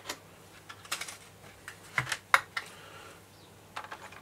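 Clear plastic packaging tray and plastic model rail vehicle being handled: scattered sharp clicks and crackles, the loudest a pair about two seconds in and a quick cluster near the end.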